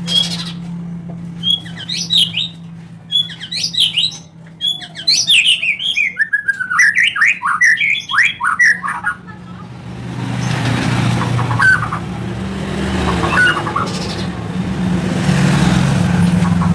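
White-rumped shama (murai batu) singing a fast run of varied whistled and chattering phrases for about eight seconds. After that a steady engine-like rumble and hiss takes over, with only a few faint chirps.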